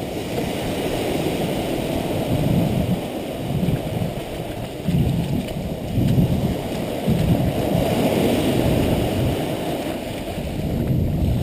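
Sea surf breaking and washing up the sand at the water's edge: a steady rushing with low rumbles that swell every second or two.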